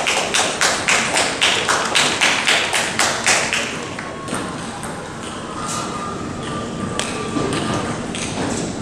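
Spectators clapping in unison, about three to four claps a second, which stops about three and a half seconds in and leaves the quieter noise of the hall.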